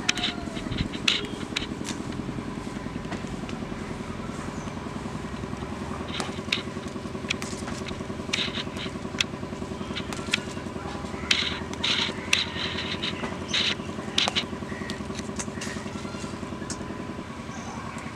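Jute leaves being plucked by hand: crisp snaps and rustles as leaves are torn from the stems, in irregular clusters. Underneath runs a steady engine drone.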